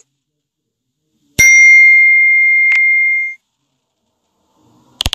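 iPhone incoming-message alert chime: two bell-like dings at the same pitch, about a second and a half apart, ringing on for about two seconds. iPhone keyboard clicks start at the very end.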